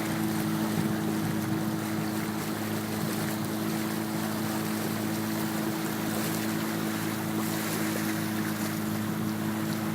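The sailboat's outboard motor runs at a steady, even hum, with wind and water noise over it.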